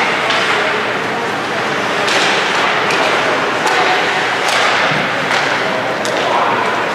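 Ice hockey game play in an arena: sharp clacks of sticks and puck, several in a row, over a steady wash of skating and crowd noise.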